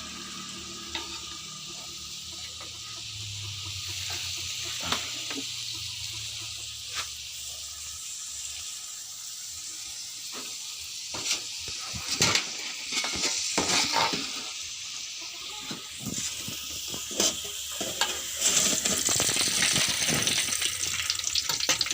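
Cassava pieces deep-frying in hot oil with a steady sizzle. From about eleven seconds in, a utensil turning them knocks and scrapes against the pan again and again.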